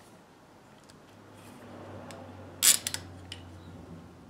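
Steel bar clamp being set: its sliding jaw clacks on the bar, giving one sharp metallic click about two-thirds of the way through and a few lighter ticks after it, over a faint low hum.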